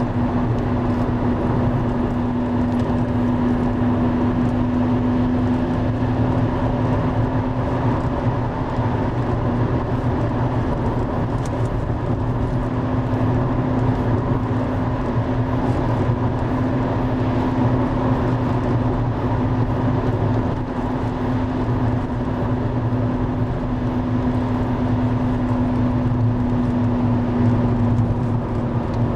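The Driva river in heavy flood, its water rushing in a loud, steady roar. A steady low hum runs under it and cuts off near the end.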